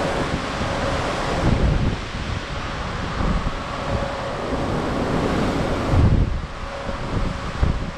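Wind buffeting the microphone in gusts, heaviest about a second and a half in and again near six seconds, over the steady rush of ocean swells sliding past a moving cruise ship. A faint steady hum lies underneath.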